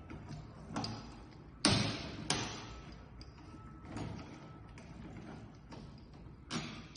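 A handful of sharp knocks and clunks of hard parts being handled and fitted onto the ventilator's mounting frame. The loudest two come close together about a second and a half in, with fainter taps before and after.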